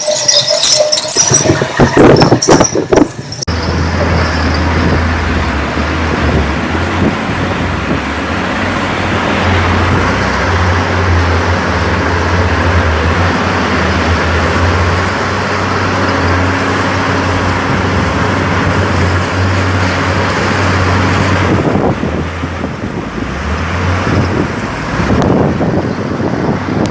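A heavy machine's engine running steadily with a low hum over a noisy rumble, after a few seconds of sharp knocks and crackling. The engine sound drops and turns uneven near the end.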